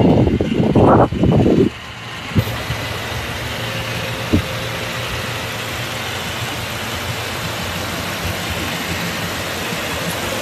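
The Ford F-450 truck's engine idles steadily, with a couple of faint clicks. Loud bursts of buffeting noise cover it for the first second and a half.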